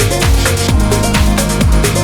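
Electronic dance music with a steady, fast beat and falling bass sweeps.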